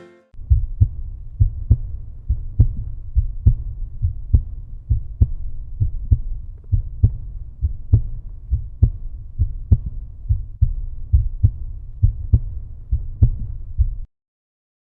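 Deep, regular thumping beat like a heartbeat, roughly one strong thump a second with softer ones between, from the end-screen soundtrack; it cuts off suddenly near the end.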